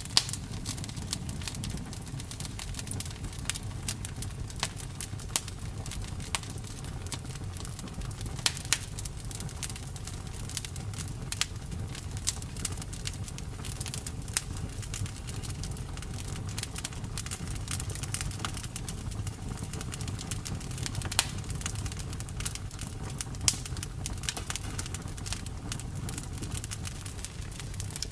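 Bonfire crackling: irregular sharp pops and snaps, some of them louder, over a steady low rumble.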